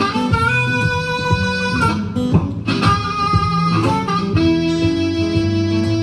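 Blues harmonica holding long notes, one near the start and a longer one in the second half, over a picked acoustic guitar.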